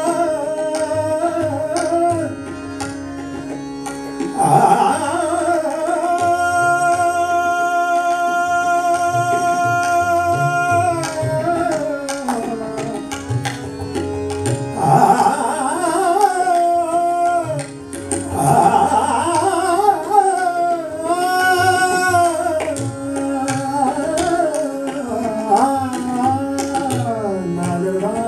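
Hindustani classical vocal with tabla and harmonium accompaniment. A male singer holds long notes and glides slowly between pitches over a steady drone, while the tabla keeps up strokes throughout.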